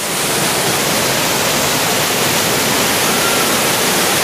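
Small waterfall pouring into a pool: steady rushing water that grows a little louder in the first second.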